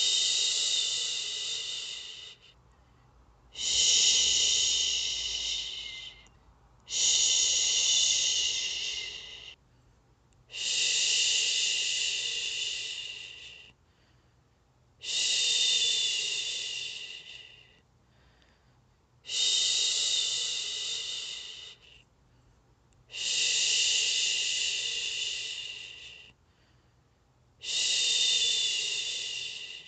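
A woman shushing, 'shhhh', to soothe a baby to sleep: eight long shushes in a row, each about two and a half seconds long, starting loud and tapering off, with a short pause between them.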